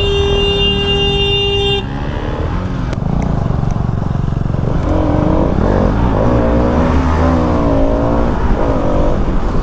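A vehicle horn sounds steadily for about the first two seconds, over the running engine of a Bajaj Pulsar RS200 single-cylinder motorcycle being ridden in traffic. After the horn the engine and road noise carry on, with a wavering rising-and-falling tone through the last few seconds.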